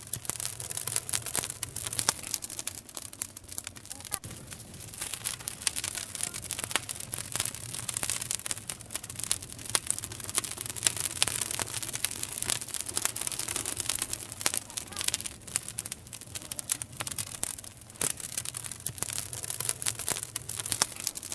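Campfire burning: wood crackling and popping, with many irregular sharp snaps over a steady hiss.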